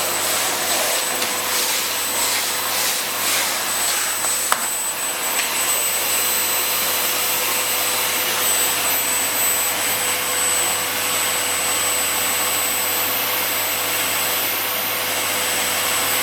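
Ariete 2788/2 Eco Power bagless vacuum cleaner, an 1150 W model, running steadily with a high whine over its motor noise. The sound pulses during the first few seconds, and there is a single sharp click about four and a half seconds in.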